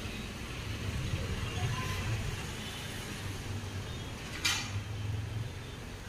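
Steady low rumble of street traffic, with a brief noisy burst about four and a half seconds in.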